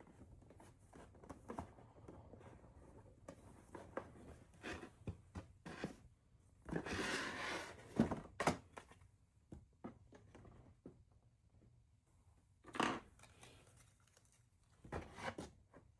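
Small gift items being handled and set into a foam-board box: scattered light taps and knocks, with a rustle lasting about a second around the middle, followed by two sharper knocks.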